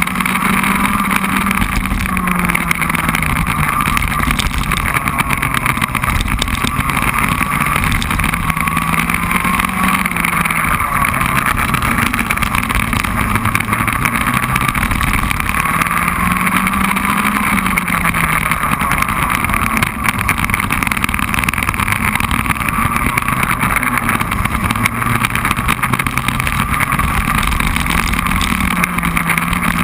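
Racing kart engine heard from on board at speed, its note climbing and dropping a few times as the kart accelerates out of corners and slows into the next.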